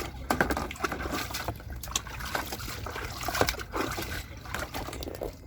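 Dishes being washed by hand in a basin: water sloshing and trickling, with many short knocks and clinks of the utensils scattered throughout.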